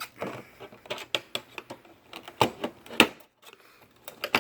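A pry tool clicking, knocking and scraping against a tail light trim piece as its top clip is worked loose, with sharp clicks scattered throughout and the loudest knocks about two and a half and three seconds in.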